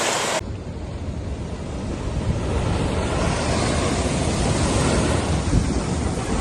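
Rough surf rushing continuously, with strong wind buffeting the microphone.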